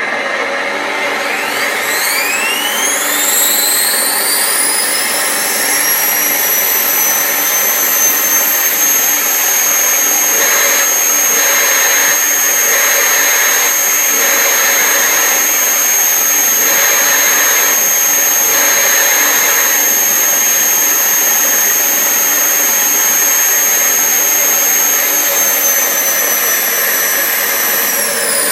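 Simulated turbine helicopter engine sound from a sound module, played through a small speaker in the nose radome of a 500-size Seahawk model helicopter. A whine rises over the first several seconds as the engine spools up. It then holds steady over a hiss and falls away near the end as the engine spools down.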